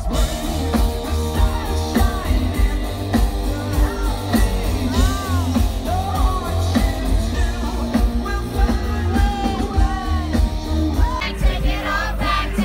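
Live rock band playing through a large outdoor PA: a male singer over drums, bass and guitar, with a loud, boomy low end. Near the end, fans close by sing along.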